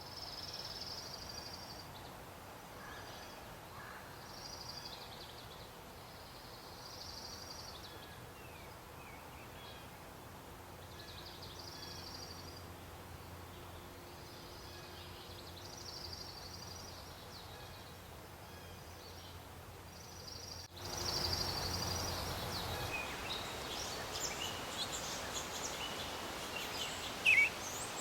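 Bluebirds calling: short high-pitched calls repeating every couple of seconds over a faint outdoor background. About two-thirds of the way in, the background jumps louder and scattered sharper chirps take over.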